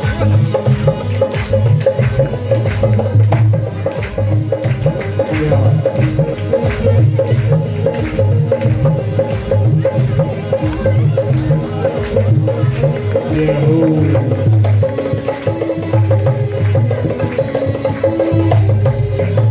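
Loud dance music with a steady, heavy bass beat and busy percussion.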